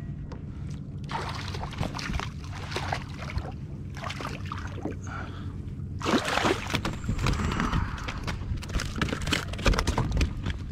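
Water splashing as a hooked fish thrashes at the surface beside a kayak and is lifted out, starting suddenly about six seconds in. Knocks and rattles follow as it is swung aboard and handled.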